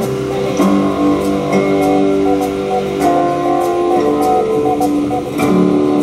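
Guitar music played back from a cassette tape on a Pioneer CT-1370WR dual cassette deck, running through a programmed track sequence.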